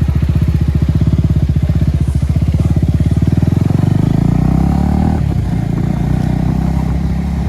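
Motorcycle engine running with a fast, even putter, its revs rising about four seconds in and then holding at a higher, steadier pitch.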